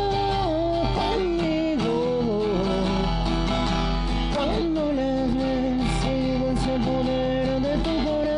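A recorded song: guitars with a sung melody line that holds and bends over a steady bass.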